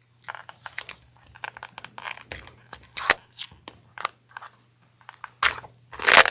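Plastic wrapping on trading-card booster packaging being torn open: irregular crinkling and crackling, with a louder burst near the end.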